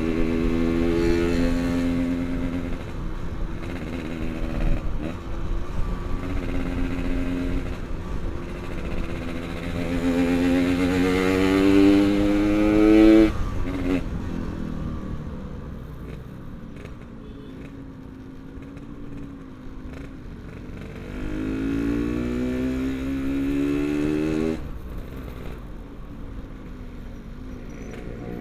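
Yamaha RX-King's two-stroke single-cylinder engine riding in traffic. It pulls steadily, then rises in pitch as it revs up and cuts off sharply about halfway through, runs low and quiet for a while, and rises once more before cutting off again near the end.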